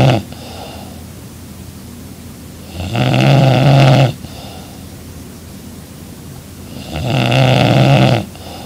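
A young woman snoring loudly in her sleep: a loud snore about every four seconds, each lasting a little over a second, with quieter breathing in between.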